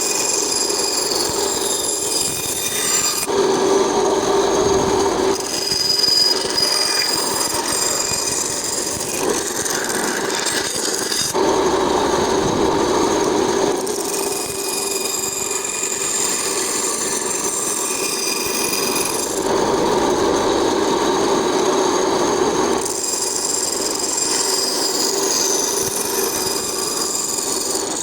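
Band saw running and cutting through wood: a steady machine hum under a rasping cutting noise, changing abruptly every few seconds.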